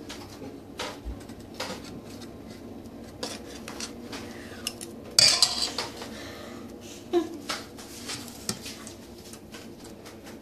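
A metal spoon clinking against a stainless steel mixing bowl of salad: scattered light clinks, with a loud clatter about five seconds in and another sharp knock about two seconds later.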